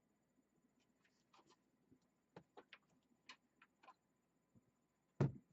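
Scattered light clicks, taps and scrapes of hands working parts and cables into a PC case, with one loud knock near the end.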